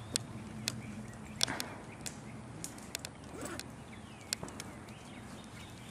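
Scattered sharp snaps and clicks of airsoft gunfire and BBs striking nearby, coming at irregular intervals with gaps of up to a second.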